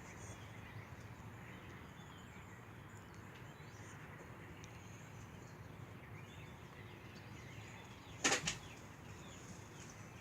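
Faint, short high bird chirps over a steady low background, then two sharp loud sounds in quick succession about eight seconds in.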